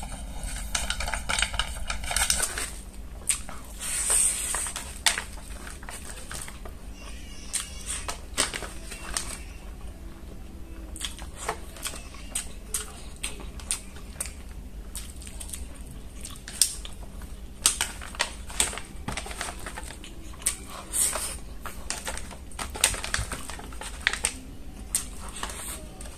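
Close-miked eating sounds: chewing with irregular wet smacks and crunchy clicks, several a second, some sharper and louder than others.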